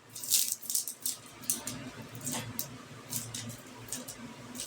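Irregular short, high-pitched scratchy rustles and taps, like something being handled close to the microphone, over a faint low hum.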